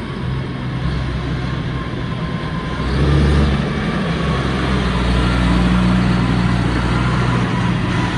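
Claas Xerion tractor's diesel engine running as it drives up, a steady low drone that grows louder about three seconds in.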